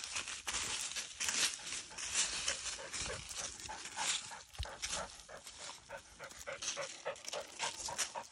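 A dog panting quickly in a steady rhythm while moving through dry leaves, with leaves crunching underfoot.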